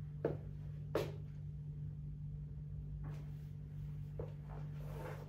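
Quiet room tone with a steady low hum, broken by four faint short knocks or clicks.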